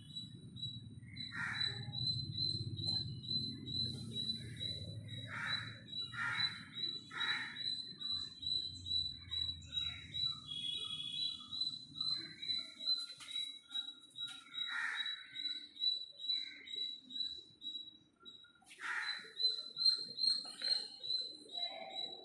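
Bird-like chirping: a short high chirp repeated steadily at one pitch about twice a second, with lower, harsher calls every second or two.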